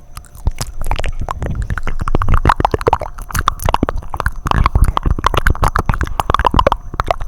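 Close-miked wet mouth sounds: rapid tongue clicks, lip smacks and wet sucking, many per second, with low gurgling swells.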